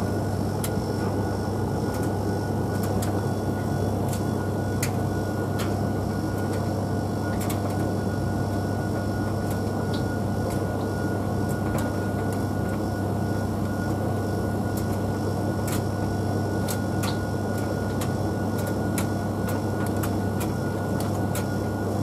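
Tumble dryer running on a timed dry programme: a steady low hum from the motor and drum, with a faint steady whine. Scattered light clicks and taps come from the load tumbling in the drum.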